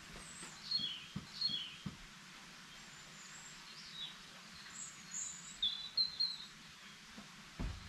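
Small birds chirping in short groups of calls over faint steady outdoor background noise, with a dull low thump near the end.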